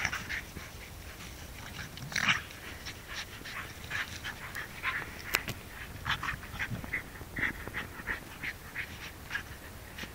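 Two dogs, a miniature Australian Shepherd and a Parson Russell Terrier, play-fighting with short, quick dog noises a few times a second.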